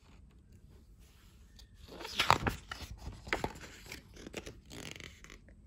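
A page of a picture book being turned by hand: paper rustling and flapping, starting about two seconds in, with two crisp louder snaps of the sheet, then dying away near the end.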